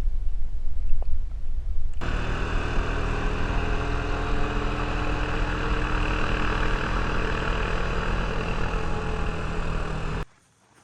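Steady mechanical hum of an engine or motor, several steady tones over a hiss, starting suddenly about two seconds in and cutting off abruptly near the end.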